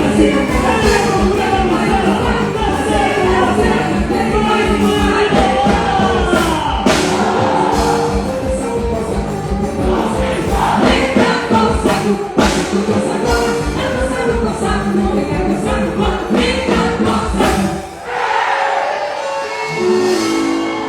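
Loud music with a steady beat and group singing. Near the end the bass and beat drop out briefly while the voices carry on.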